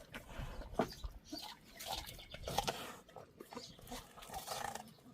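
An animal chewing watermelon, with irregular wet smacking and crunching bites.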